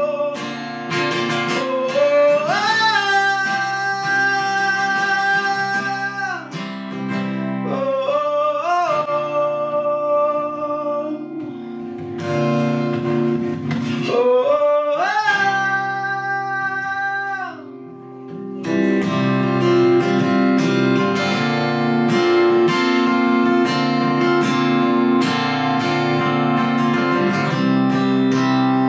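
A solo singer holding long, bending notes over a strummed acoustic guitar. The voice stops about two-thirds of the way through and the guitar strums on alone.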